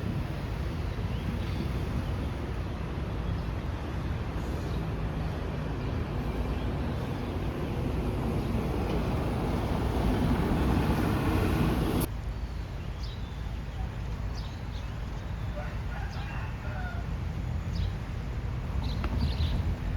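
Steady low engine rumble that builds for about twelve seconds and then cuts off suddenly to a quieter rumble. Short bird calls come through over the quieter part.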